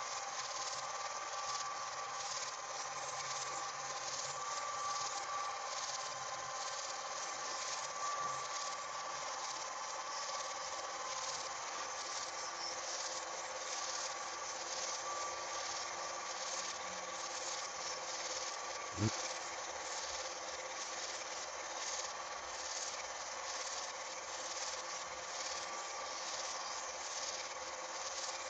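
Film projector running, a steady mechanical rasping noise with a few constant tones, with one sharp click about nineteen seconds in.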